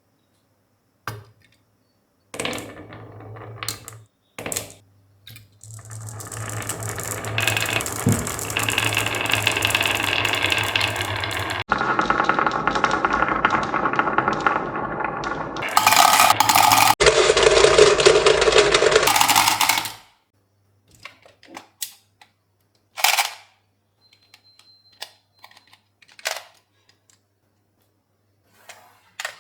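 Marbles rolling and clattering along a marble run. There are separate clicks as marbles drop and strike pieces, then a long continuous rolling rattle for about fifteen seconds, changing sharply twice, and after that scattered clicks again.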